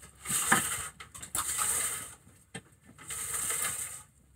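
Socket ratchet wrench clicking in three short runs as a nut is wound on, with a sharp metal knock about half a second in.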